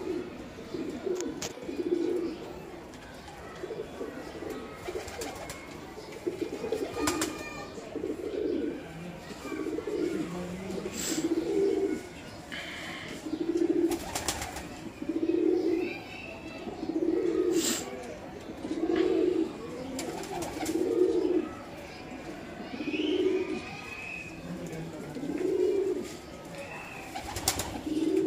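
Pigeons cooing: low, rounded coos repeating every second or two, with a few sharp clicks in between.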